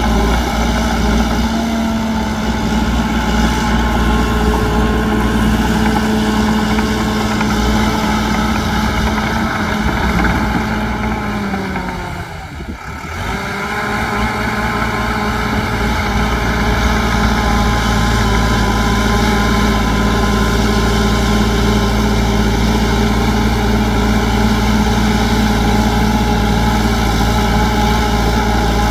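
Heavy diesel engine of earthmoving machinery running steadily. About twelve seconds in, its pitch sags and the sound briefly drops, then it comes back to the same steady running.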